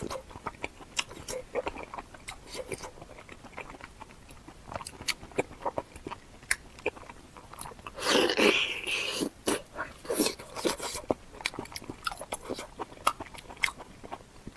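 Close-miked eating: biting and chewing, with crunches and wet mouth clicks coming irregularly. About eight seconds in there is a louder, denser stretch of about a second.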